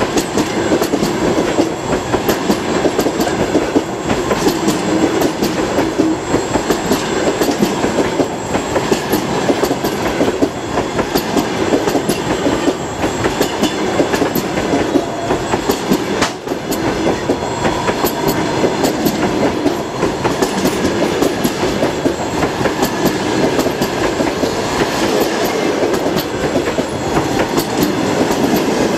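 Passenger coaches passing close by at speed: a steady loud rush of wheels on the rails, with many sharp clicks as the wheels run over the rail joints.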